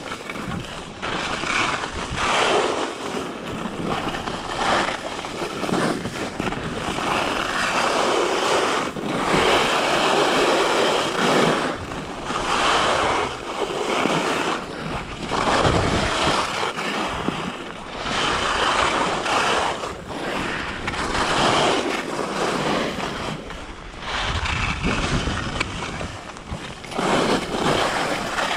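Skis carving and scraping over groomed snow, the hiss swelling and fading with each turn every second or two, over wind noise on the microphone.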